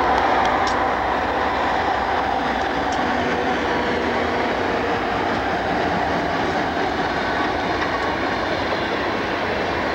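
Diesel locomotives of a train rolling past at close range: a steady rumble of engines and wheels on the rails, with a few faint clicks in the first second.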